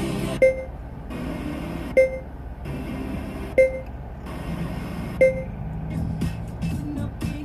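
Four short electronic beeps about a second and a half apart, each a single clear tone, over a steady low in-car hum.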